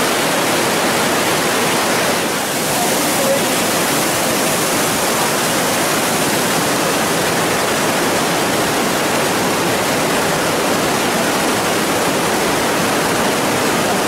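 Whitewater of the Breitach river rushing through the narrow rock gorge of the Breitachklamm: a loud, steady, even rush of water.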